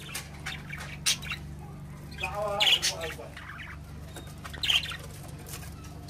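Budgerigars giving short, sharp chirps and squawks, about three separate calls, one of them a longer warbling call about halfway through. A steady low hum runs beneath.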